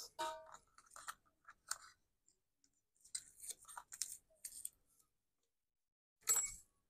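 Small die-cut card pieces being handled and laid on a sheet of card: faint, scattered paper rustles and light ticks, with a louder rustle near the end.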